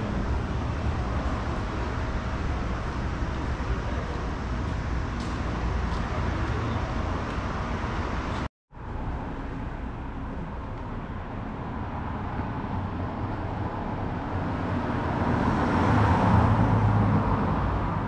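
Urban background ambience: a steady hum and hiss with no clear single source. It drops out abruptly about eight and a half seconds in, then returns quieter and swells toward the end.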